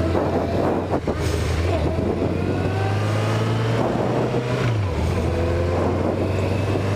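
Inline-four motorcycle engine running underway, its pitch rising steadily as it accelerates, then dropping suddenly about two-thirds of the way in as it shifts up a gear, before carrying on steady.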